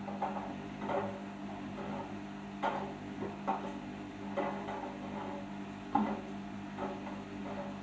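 Arçelik 5083 front-loading washing machine in its final spin stage: a steady motor and drum hum with irregular light clicks and knocks about once or twice a second.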